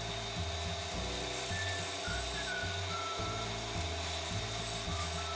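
Edge of a ceramic tile strip being ground on the abrasive belt of a belt grinder: a steady grinding hiss while the edges are smoothed and rounded. Background music with changing bass notes plays underneath.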